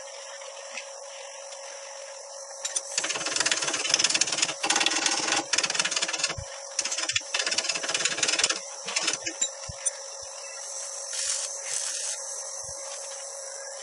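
Workshop tool noise during metal fabrication: a harsh, uneven, crackling run that starts about three seconds in and stops around nine seconds, with short stuttering bursts. Under it, a steady hiss with a constant tone, like insects, carries on throughout.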